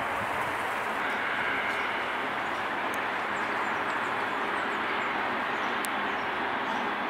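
Steady distant roar of an Airbus A380's jet engines on final approach, holding an even level.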